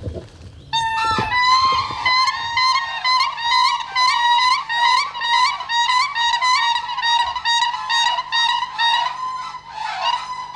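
Siberian cranes calling: a long run of loud, melodic whooping notes, about two a second, beginning about a second in. This is the territorial call by which a pair claims its nesting ground.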